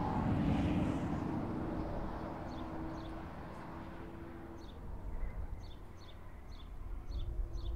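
A passing car's engine fading away, then a bird chirping repeatedly, short high notes about twice a second, over a faint distant engine drone.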